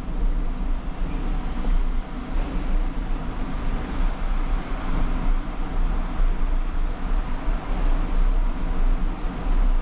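Wind buffeting the microphone of a moving bicycle's handlebar-mounted action camera, with its wind-noise reduction switched off: a constant fluttering low rumble over a steady hiss.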